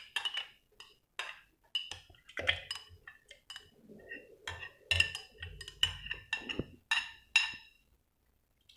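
Spoon clinking and knocking against a blender jar as cooked peach pieces are spooned in, with soft thuds of the pulp dropping. A quick, irregular run of taps that stops about a second before the end.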